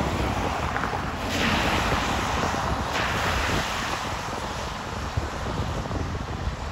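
Car tyres hissing and splashing through floodwater on a road, swelling twice in the first half, over a steady low rumble of wind on the microphone.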